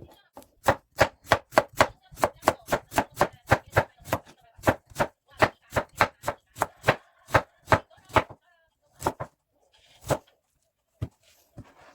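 Kitchen knife chopping vegetables, quick even strokes about three a second that stop after about eight seconds, followed by a few slower, spaced-out chops.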